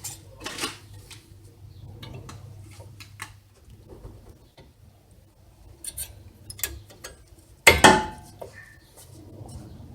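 Metal brake pads being seated into the caliper bracket's pad clips: scattered light metallic clicks and clinks, with one louder clack about three-quarters of the way through.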